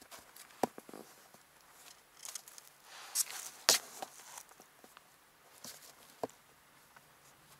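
A kitten scrabbling and pouncing in a cardboard box: scattered sharp knocks of paws and body against the cardboard, with short bursts of rustling from the pad lining the box. The loudest knock comes about halfway through.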